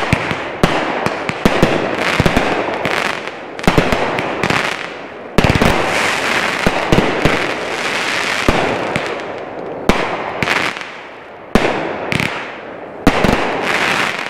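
Consumer aerial fireworks, cakes and ball shells, bursting in quick succession: many sharp bangs over continuous crackling from gold crackle and glitter stars. The heaviest volley starts about five seconds in.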